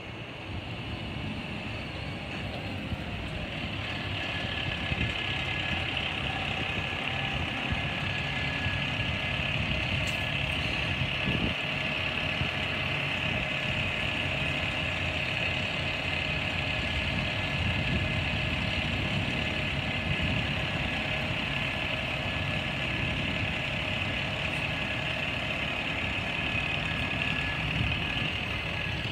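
Side-loader garbage truck's diesel engine running as the truck comes close and then idles, getting louder over the first few seconds, with a steady high-pitched whine over the engine.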